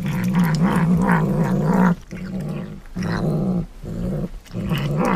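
Tabby cat growling as it bites and eats, a low wavering growl in long stretches with smacking chews through it. It breaks off twice, briefly.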